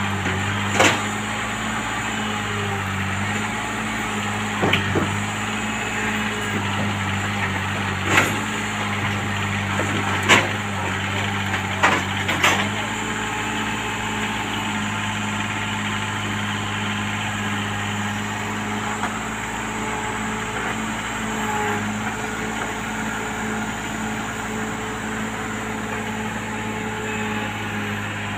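Komatsu PC hydraulic excavator's diesel engine running steadily, with several sharp knocks or clanks in the first half.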